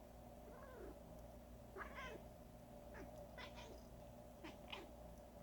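A domestic cat meowing faintly about six times in short, separate calls, fussing at her owner's coughing.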